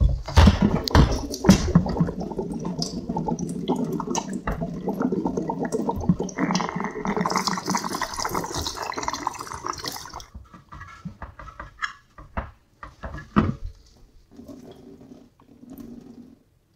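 Water pouring out of a 5-litre oak barrel into a stainless steel sink as the barrel is drained of its soaking water, the stream splashing on the steel. The pour stops about ten seconds in, followed by a few light knocks as the barrel is handled.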